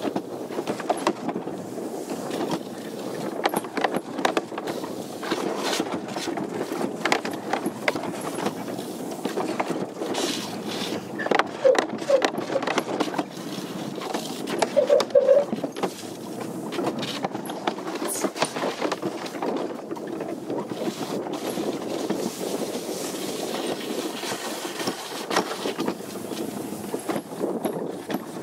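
Summer toboggan sled running down a fibreglass trough track: a steady rumbling scrape of the sled in the channel, with frequent knocks and rattles and a louder stretch around the middle.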